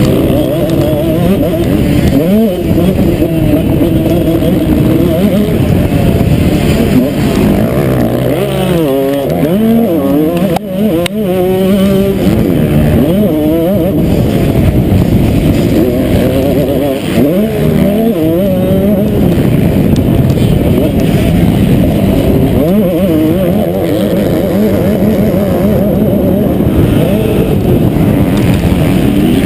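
Motocross bike engine heard from the rider's helmet camera, running hard through a race lap, the revs rising and falling quickly with throttle and gear changes several times.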